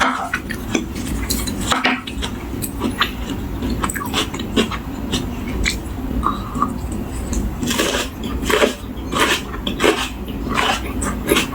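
Close-up eating sounds: irregular crunchy chewing of fresh vegetables, with clinks of cutlery on a plate.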